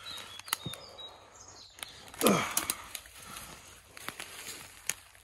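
Footsteps crunching over dry leaf litter and fallen sticks, with irregular sharp twig snaps. About two seconds in comes a brief, louder sound that slides down in pitch.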